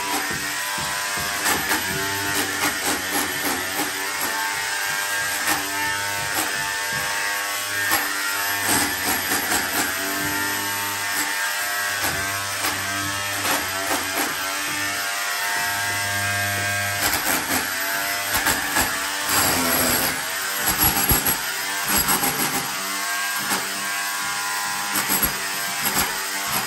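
Electric rotary hammer in chisel mode running, its motor whine steady under rapid hammering as the chisel bit breaks old plaster and mud render off a brick and adobe wall, with short knocks of chunks breaking away. About two-thirds of the way through, the motor pitch wavers as the bit bites harder.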